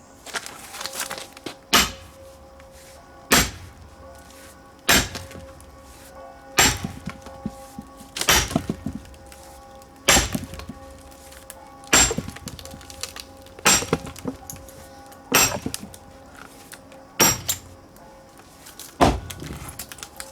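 Heavy splitting blows on pine firewood rounds, about a dozen strikes at an even pace of roughly one every second and a half, each a sharp thunk with a brief crack of splitting wood, over background music.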